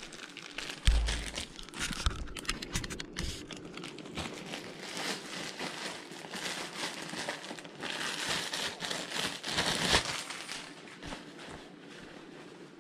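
Plastic packaging crinkling and rustling as it is pulled open and the folded fabric box spring cover is drawn out of it, with one dull thump about a second in. The crackling is loudest about ten seconds in, then dies down near the end.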